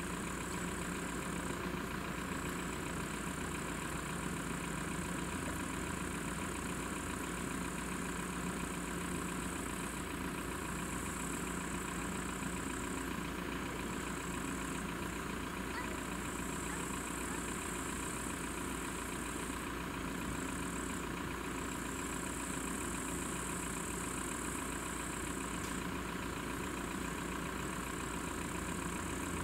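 AŽD ZV-01 electric level-crossing bell ringing continuously and steadily, sounding the warning that a train is approaching and the crossing is closed.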